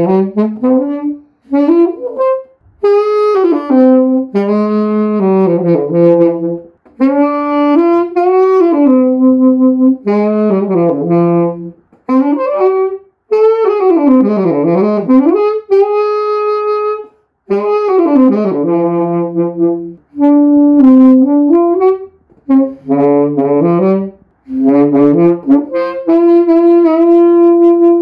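Mendini by Cecilio nickel-plated B-flat tenor saxophone played in short phrases of held notes and runs, with brief breaks for breath between them. About halfway through, a fast run sweeps down into the low register and straight back up.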